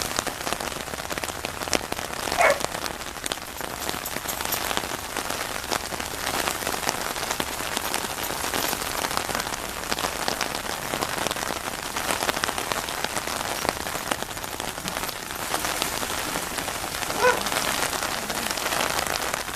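Heavy rain falling steadily, a dense, even hiss. A dog gives a short bark twice, about two and a half seconds in and again near the end.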